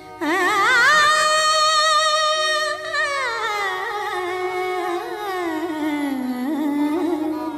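A female film singer's wordless 'aa' vocalise with instrumental accompaniment: the voice comes in about a quarter second in on a high note with wide vibrato, holds it, then slides down in pitch over the next few seconds.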